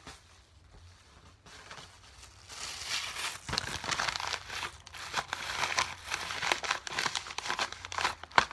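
Plastic bags crinkling as they are crumpled and stuffed into a folded paper pouch as filling. Faint at first, it gets loud and dense about two and a half seconds in, with a sharp crackle just before the end.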